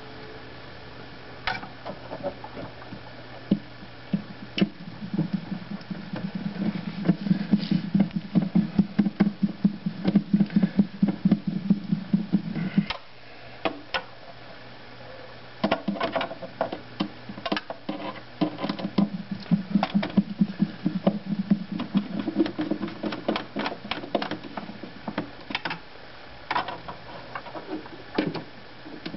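Screwdriver turning screws in a sheet-metal bracket inside an appliance cabinet: fast, rhythmic scraping and clicking in two long stretches, with a short pause about 13 seconds in.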